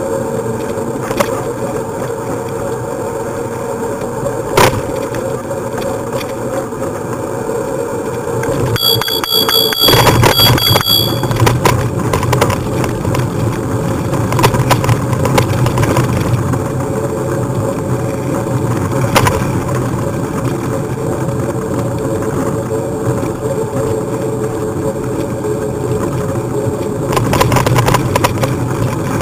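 Bicycle riding along a path: steady rolling noise of the tyres with a few short knocks from bumps. About nine seconds in, a bicycle bell rings with a fluttering trill for about two seconds, and the rolling noise grows louder after it.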